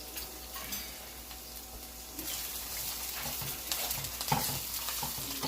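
Onion and bell pepper sizzling in hot oil in a pan, the grease popping. The sizzle grows louder about two seconds in, with a few knocks of a utensil stirring in the pan.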